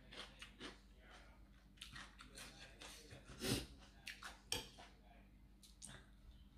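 A person biting and chewing a mouthful of spicy cucumber salad with octopus: a string of short crunches and wet mouth clicks, with the loudest crunch a little past halfway.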